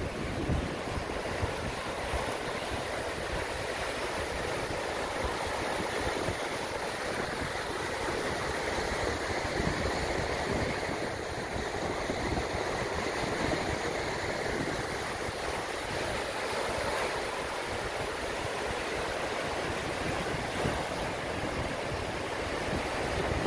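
Lake Superior surf breaking and washing up on a sandy shore, a steady rush of water, with wind buffeting the microphone.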